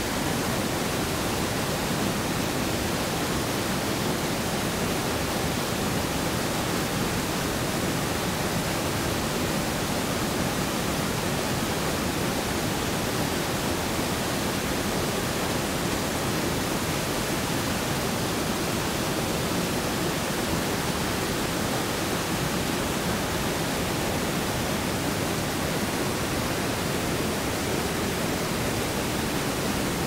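Fast-flowing river with white water, rushing steadily as a dense, even noise.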